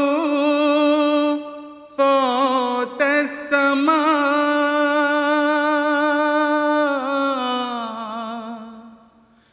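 A man's solo voice chanting an Urdu nazm with no accompaniment, in long drawn-out held notes with small ornamental wavers. He pauses briefly for breath about two and three seconds in. The last note slides down and fades away near the end.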